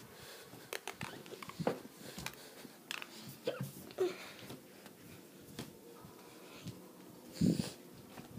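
Handling noise from a handheld phone being carried: scattered knocks and rustles, with a few short squeaks around the middle and one louder rustling thump near the end.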